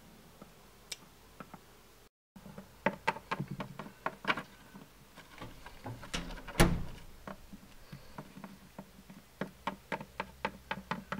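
Plastic toy pet figures tapped and set down on a wooden tabletop: runs of light, quick knocks like little footsteps, with one louder thump about six and a half seconds in.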